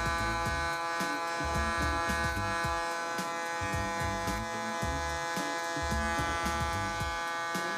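Panasonic electric hair clipper running with a steady buzzing hum while cutting a fade.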